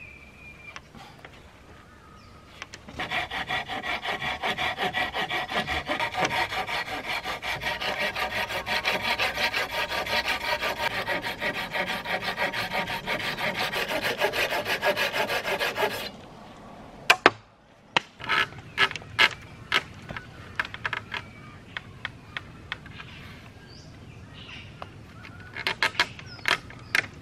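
Rapid, even rasping strokes on wood, several a second with a ringing note, for about thirteen seconds; they stop suddenly and are followed by scattered sharp knocks and clicks.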